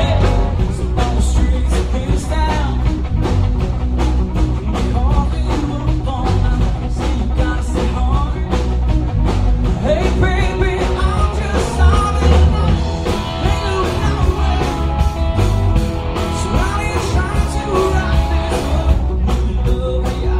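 Live rock band playing: electric and acoustic guitars over a steady drum-kit beat, with a male lead vocal singing, picked up by in-ear binaural microphones.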